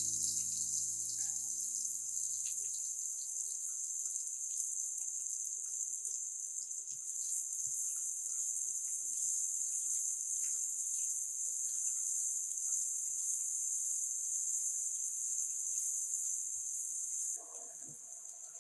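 Chopped garlic and onion sizzling in hot oil in a pot, a steady high hiss dotted with small pops; the sizzle drops away suddenly near the end.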